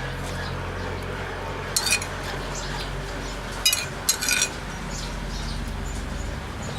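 Cutlery clinking against a dish while someone eats: a few short, sharp metallic clinks, one about two seconds in and a couple more around four seconds in, over a steady low hum.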